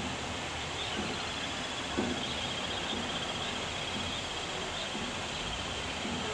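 An insect trilling, a fast even pulsing buzz that sets in about a second in and fades near the end, over a steady outdoor hiss.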